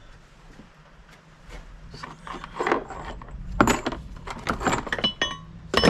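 Pieces of metal stock knocking and clinking together as they are rummaged through and moved about. There are several sharp knocks, some with a brief metallic ring, starting about two seconds in, and the loudest comes at the very end.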